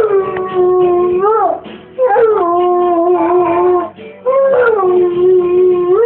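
A dog howling along to a song in three long howls, each starting high, sliding down and then holding a steady note.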